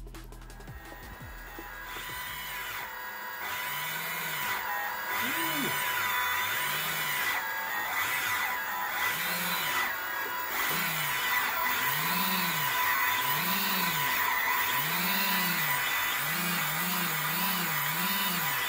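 Small electric motors on an RC ground-effect plane spinning up and winding down again and again, their whine rising and falling in pitch as the throttle follows the distance sensor's reading of a panel moved beneath the wing. The swells come quicker near the end.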